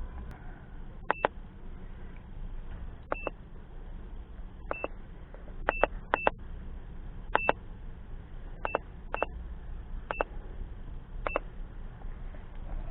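Autel MaxiCheck Pro OBD2 scan tool beeping at each button press while it clears a stored misfire trouble code: about ten short beeps at one pitch, spaced irregularly.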